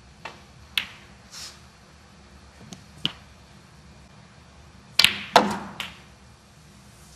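Snooker balls clicking as shots are played: single sharp clicks of cue tip and ball on ball in the first three seconds, then a quick cluster of four louder clacks about five seconds in.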